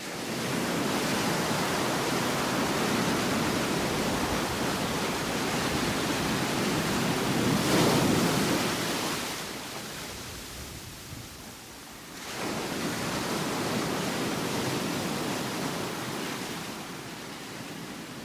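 Heavy rain pouring down as a dense, steady hiss that starts abruptly, swells about eight seconds in, eases for a couple of seconds, then picks up again.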